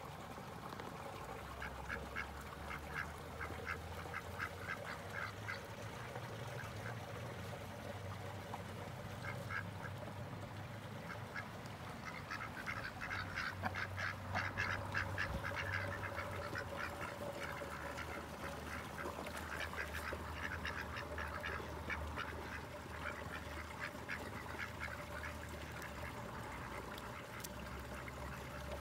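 Domestic ducks quacking in quick runs of short calls, busiest and loudest about halfway through.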